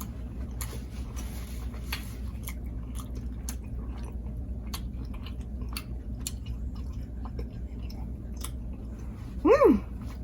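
A person chewing a mouthful of egusi soup and chapati close to the microphone, with many small wet mouth clicks and smacks. Near the end, a brief loud hum that rises and falls in pitch.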